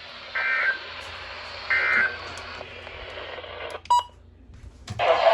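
NOAA Weather Radio SAME alert header: short buzzy digital data bursts repeated about every second and a half, sent ahead of a severe thunderstorm warning. Near four seconds in there is a sharp click and a brief beep.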